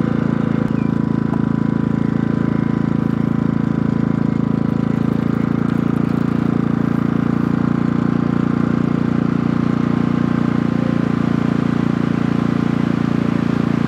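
Pulsar G2319N inverter generator running steadily in economy mode, taking the load of a shop fan that is plugged into it and switched on. The engine holds an even note throughout, with no clear rise in speed.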